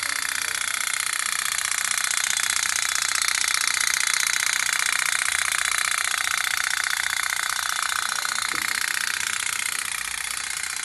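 Toy pop-pop (putt-putt) steam boat running in a tub of water: its flame-heated flat-plate boiler pulses water in and out of its two pipes, making a fast, steady putt-putt ticking.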